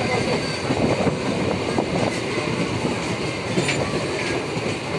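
MEMU electric passenger train running at speed, heard at an open coach window: a steady rumble of wheels on the rails with scattered sharp clicks from the rail joints.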